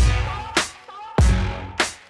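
Background electronic music with a heavy drum beat: deep kick hits and sharp percussion strokes about twice a second.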